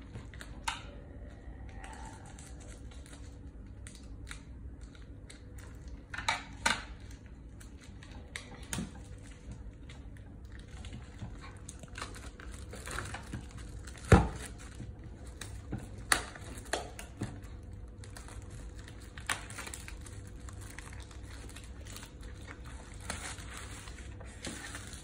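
Packaging crinkling and tearing as it is picked and peeled off a cardboard box set of books, with scattered sharp clicks and knocks from handling the box, the loudest about 14 seconds in.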